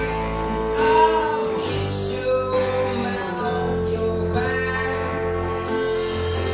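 Music: a singing voice holding long notes over guitar accompaniment.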